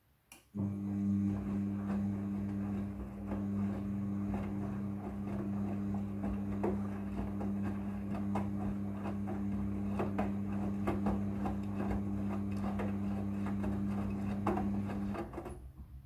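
Midea front-loading washing machine's motor running with a steady hum as it turns the drum and tumbles a wet blanket, with many light knocks and clicks from the load. It starts with a click about half a second in and winds down about a second before the end.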